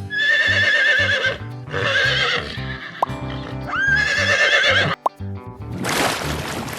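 Three high, wavering, whinny-like calls from a large hoofed animal, over background music with a steady low beat. A rushing noise sets in near the end.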